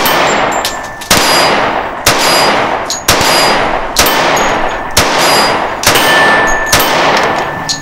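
Springfield Armory 1911 Garrison .45 ACP pistol fired eight times in steady slow fire, about one shot a second, each shot followed by a long echoing decay.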